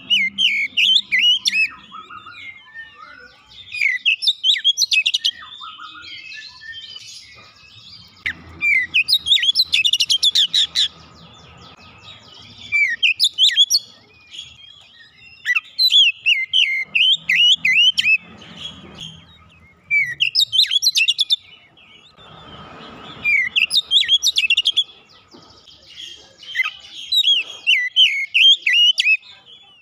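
Oriental magpie-robin singing: loud bursts of fast, varied whistled and chirping notes, each a second or two long, coming every two to four seconds, with softer chattering between them.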